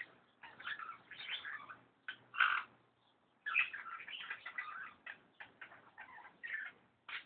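Irregular bursts of scratching, scraping and small knocks, with short pauses, as a tube is worked at and jostled inside a desk.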